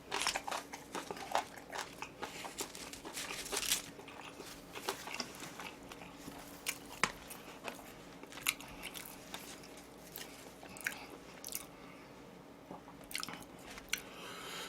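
Close-miked chewing and biting of food, with irregular wet mouth clicks and small crunches.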